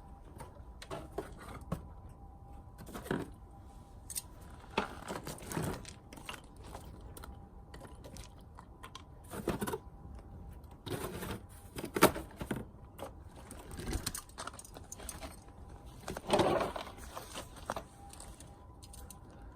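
Irregular crunching, scraping and clinking of things being handled by hand, some strokes louder than others, with a sharp knock about twelve seconds in.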